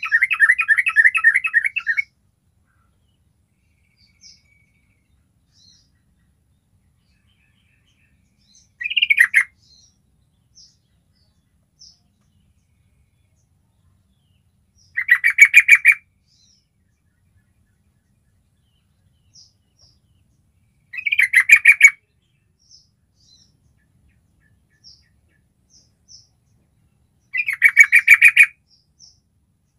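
Yellow-vented bulbul song: short phrases of rapid notes, each about a second long, coming about every six seconds, with faint short chirps between.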